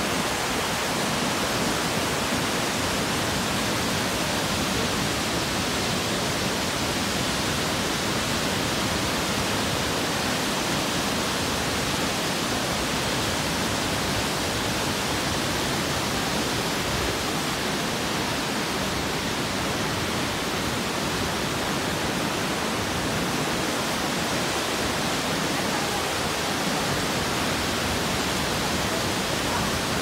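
Kegon Falls and the rocky rapids below it: a steady, even rush of falling and tumbling water.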